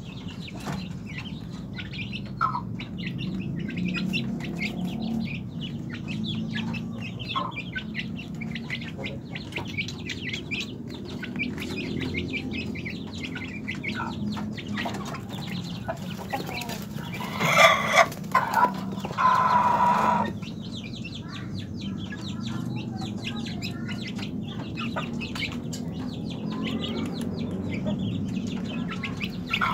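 A group of young Pelung chickens peeping and clucking in short high calls, with a louder, harsher burst of squawking about two-thirds of the way through that ends in one held, steady-pitched call.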